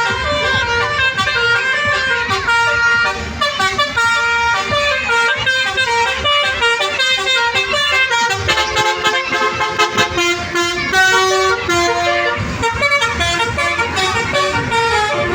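Indonesian 'telolet' bus horns (basuri), musical multi-tone air horns, playing quick stepped melodies with several notes sounding at once, over a low rumble.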